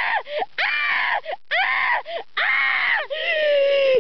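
A person screeching and screaming in play as a toy dinosaur, several high cries in a row that bend up and down, the last one held and slowly falling.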